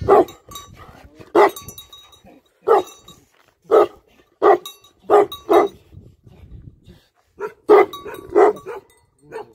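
Tibetan mastiff barking: deep single barks, about nine in all, roughly one a second, with a pause in the middle.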